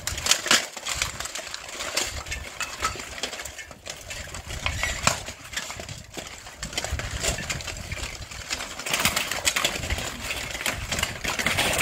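Steel plate armor clanking and clattering as armored fighters grapple and strike each other in a group melee: a dense, irregular run of sharp metallic clinks and knocks.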